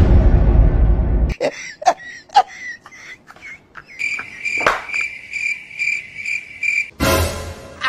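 Cricket chirping, a steady high trill pulsing a few times a second, that starts abruptly about four seconds in and cuts off about three seconds later: the comic awkward-silence effect. The loudest sounds are a rush of noise during the first second and a half and another near the end, with scattered clicks between.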